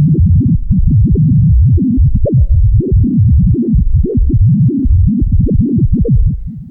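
Low, irregular electronic throbbing, several uneven pulses a second, fading out near the end.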